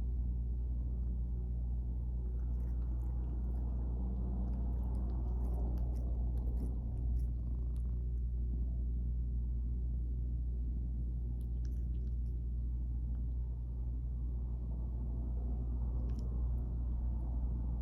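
Domestic cat purring steadily close to the microphone, a continuous low rumble. Two small hiccups break into it, about seven and sixteen seconds in.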